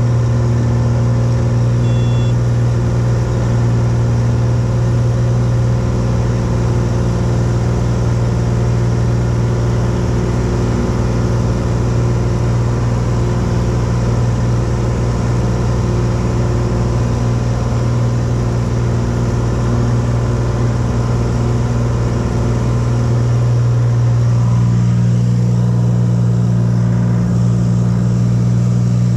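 Cessna 182's piston engine and propeller droning steadily at high power, heard from inside the cabin during takeoff and climb-out. The tone shifts slightly a little over twenty seconds in.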